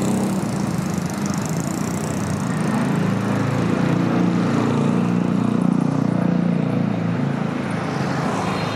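Small motor vehicle engine running close by off-picture, growing louder toward the middle and then easing off, as street traffic passing.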